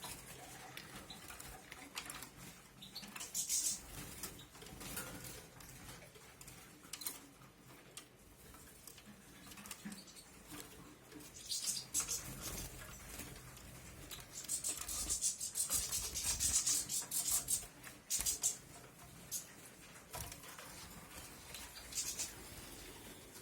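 European goldfinch singing in scattered bursts of high, rapid twittering, the longest run lasting a couple of seconds about two-thirds of the way in.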